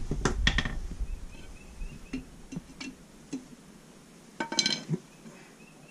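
Metal hand tools clinking and tapping: a few sharp clicks, scattered light taps, then a brief ringing metallic clatter about four and a half seconds in.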